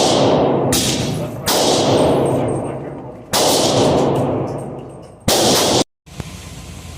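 Glock 19 9mm pistol fired four times at an uneven pace, each shot ringing out with a long echo. The sound cuts off abruptly about six seconds in.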